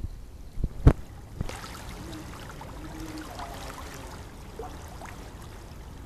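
Water curtain sheeting down a stepped black stone wall and splashing into a pool, a steady watery patter. A sharp thump, the loudest sound, comes about a second in.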